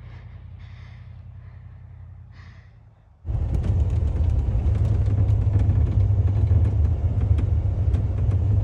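A faint low hum for about three seconds, then a sudden cut to a loud, steady low rumble inside a Ram pickup's cab as it drives on a snow-covered dirt road, with frequent small rattles and knocks.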